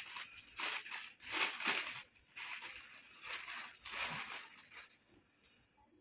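Clear plastic packaging bag crinkling and rustling in short bursts as a folded top is pulled out of it, dying away near the end.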